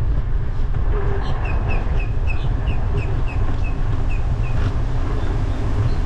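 Wind buffeting a bike-mounted GoPro Hero10 Black's microphone, with tyre rumble from the bicycle rolling over pavement. A run of short, high chirps, about three a second, comes through for a few seconds in the middle.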